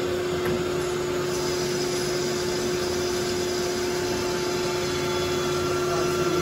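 Metal lathe running with a steady hum and one constant tone while the cutting tool takes a trial pass in the spinning stock, throwing off a stringy chip.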